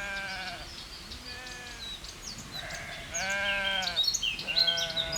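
Sheep bleating, four calls one after another with the second fainter, while small birds chirp in short high notes.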